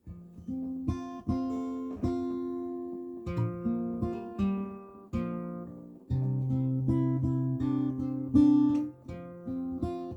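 Acoustic guitar playing an instrumental intro, plucked and strummed chords ringing out one after another.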